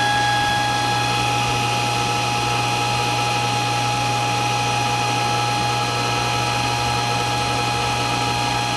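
Centurion pool pump motor running just after switch-on: a steady hum with a loud, steady high-pitched squeal over it that does not die away.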